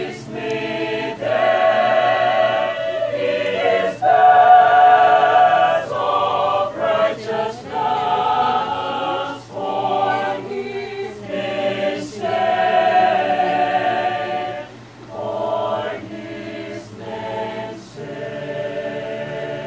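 Mixed choir of men's and women's voices singing a cappella in several parts, in held chords that come in phrases of a second or two, with crisp 's' consonants sung together between phrases.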